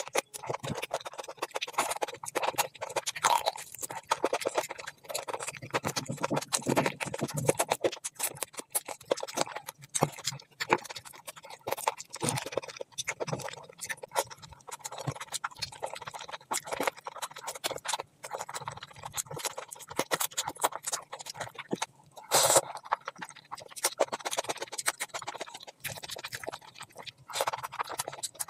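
Close-miked eating sounds of a person eating mutton curry and rice by hand: chewing, lip smacks and sucking on a mutton bone, with wet squishing of curry-soaked food in the fingers. A short louder noise comes about three-quarters of the way through.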